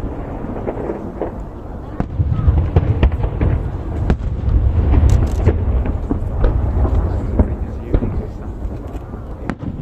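Aerial fireworks shells bursting over the sea in quick succession: sharp cracks throughout and a dense run of deep booms from about two seconds in, heaviest near the middle, easing toward the end.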